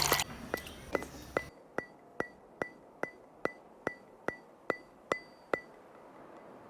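A run of evenly spaced sharp clicks, about two and a half a second, each with a brief high ring, stopping after about five and a half seconds. Background music fades out about a second and a half in.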